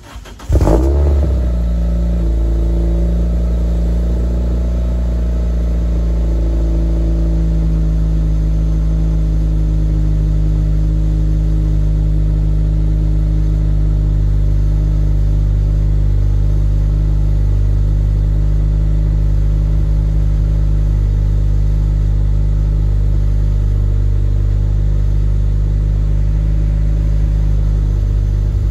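A 2003 Toyota Matrix XRS's 2ZZ-GE 1.8-litre four-cylinder cold-starting through a DC Sport 4-2-1 ceramic header. It catches about half a second in with a short rev flare, then settles into a steady idle that eases down slightly over the first few seconds.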